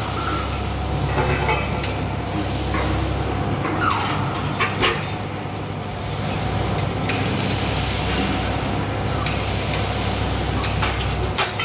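Heavy machinery running with a steady low drone, metal knocks and clanks, and a few short squeals that fall in pitch.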